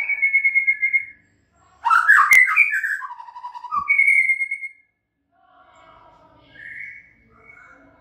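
White-rumped shama singing: loud whistled phrases and trills with short pauses between them, turning to softer phrases in the second half, and a sharp click a little over two seconds in.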